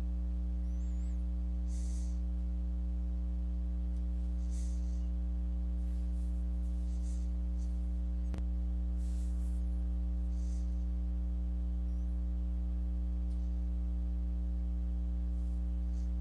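Steady electrical mains hum with a stack of even overtones, picked up by the recording chain. A single faint click comes a little past halfway.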